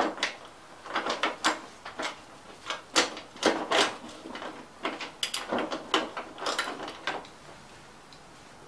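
Irregular metal clicks and clanks, some in quick short runs, from a socket wrench working at a stubborn bolt on the underside of a Craftsman mower's self-propel drive. They stop about seven seconds in.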